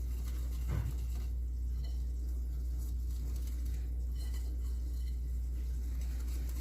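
Hand whisk stirring flour into a wet cake batter in a bowl: a soft, quick patter, with a steady low hum underneath.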